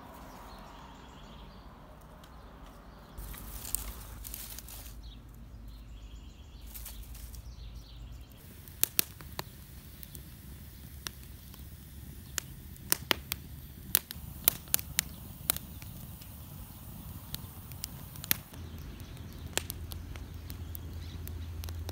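Small wood fire crackling, with many sharp separate pops clustered from about nine to eighteen seconds in, over a low steady background rumble.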